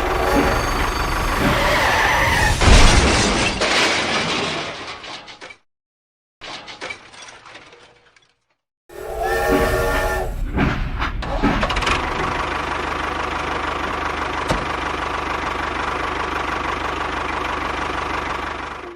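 A small motor running steadily, with a louder rough rush about three seconds in. The sound cuts out abruptly twice around the middle before the motor noise resumes.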